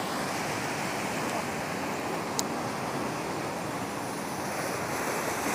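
Waves and churning river-mouth water breaking against rock boulders: a steady rushing noise, with one brief tick about two and a half seconds in.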